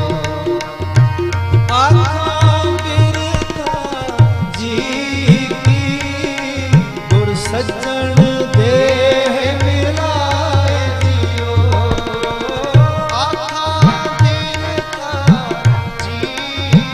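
Sikh kirtan: two harmoniums and a tabla accompany male voices singing a shabad. The tabla keeps a steady rhythm, and on many strokes its bass drum swoops upward in pitch.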